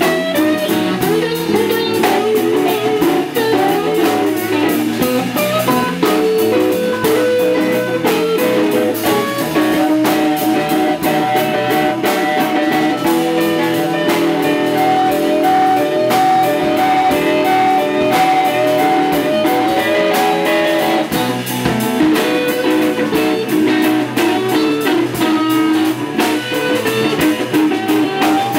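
Live blues band playing an instrumental passage on electric guitars and a drum kit. A lead guitar line of bent and long-held notes runs over the rhythm guitar and a steady beat on drums and cymbals.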